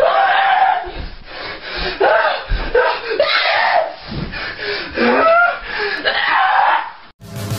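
Excited voices shouting, with no clear words. Just before the end they cut off abruptly and electronic music starts.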